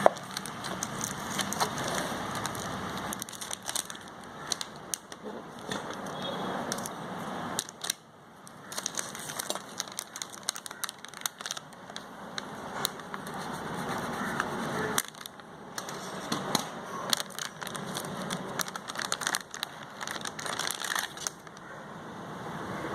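Packaging being handled: plastic and cardboard crinkling and rustling, with many small clicks and taps, dipping briefly twice.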